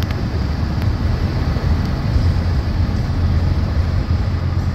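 Steady road noise inside a car's cabin while cruising on a highway: a low, even rumble of tyres and engine.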